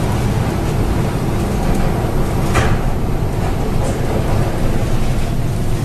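Storm noise aboard a bulk carrier in heavy seas: a steady, loud, deep rumble of wind, waves and the ship's hull, with a couple of brief hisses a few seconds in.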